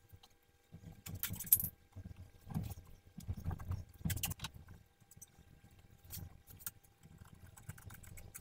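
Rubber upper radiator hose and its clamp handled and pushed into place by hand: irregular knocks and rubbing, with two brief scraping hisses, one about a second in and one about four seconds in.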